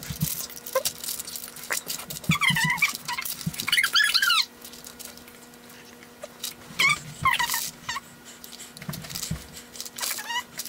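Several short high-pitched whines that slide up and down in pitch, over soft thuds of hands kneading and patting warm dough into flour on a baking sheet.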